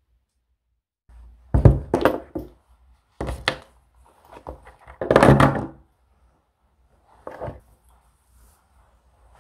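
Knocks, thuds and rustling as small items are handled and set down on a tabletop, coming in several separate bursts. The loudest bursts come about two seconds and five seconds in.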